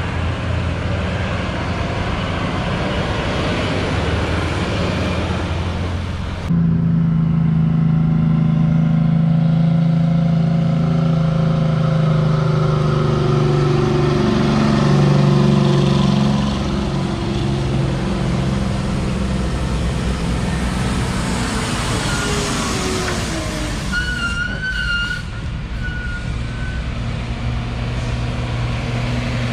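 Diesel engines of a bus and heavy trucks pulling through a tight curve. A big truck's engine runs loud and steady for about ten seconds, its pitch rising and falling, then its sound drops away as it passes. A brief high wavering squeal comes about three-quarters of the way through.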